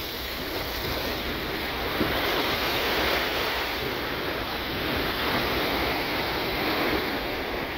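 Surf washing onto a sandy beach: a steady hiss of small breaking waves that swells and eases gently, with some wind on the microphone.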